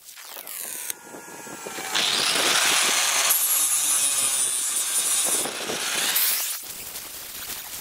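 Electric angle grinder grinding a weld seam on an aluminium pontoon tube. It is loudest from about two seconds in until about six and a half seconds, and runs quieter at the start and near the end.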